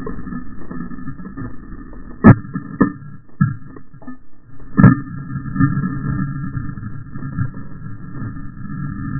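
Muffled underwater noise: a steady low rumble broken by a few sharp knocks, the loudest about two seconds in and again near five seconds in, as a speargun's tip prods the sand and rock of the seabed.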